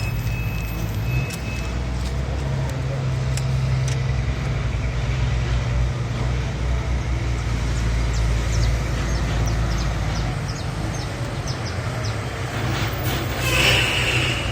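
A steady low engine hum, like a motor running at idle, with scattered faint ticks and a short noisy burst a little before the end.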